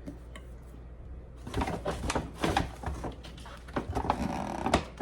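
Handling noises: rustling, scraping and light knocks as candle jars are set down and picked up, a string of short clatters that begins about a second and a half in.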